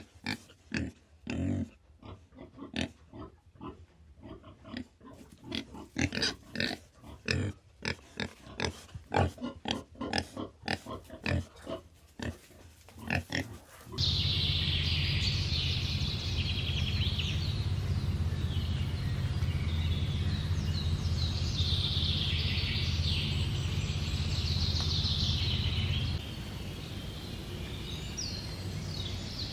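An animal's short, irregular calls in quick succession for about the first half. Then an abrupt change to a steady low hum with high, chirping calls above it. The hum drops in level near the end.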